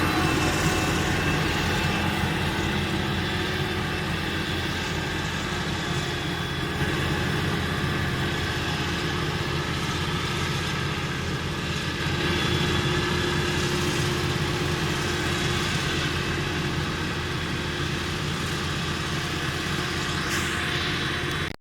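Heavy farm machinery running steadily under load: a Claas Jaguar 970 self-propelled forage harvester chopping triticale, with tractor engines mixed in. The level swells a little about halfway through and the sound cuts off suddenly at the end.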